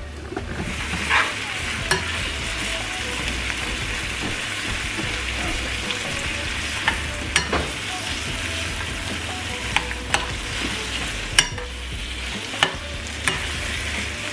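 Shrimp sizzling in melted butter and oil in a frying pan, stirred with a metal spoon that clicks against the pan now and then. The sizzle settles in about half a second in and holds steady.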